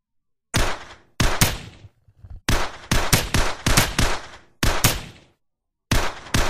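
Rapid, sharp bangs in quick bursts, each burst lasting under a second, with short silences between. They start about half a second in and come five or six times.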